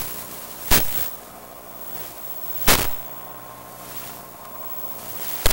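Static from a cheap wireless spy camera's radio link: a steady hiss with a faint whine, broken three times by loud crackling bursts, about a second in, near the middle and at the very end.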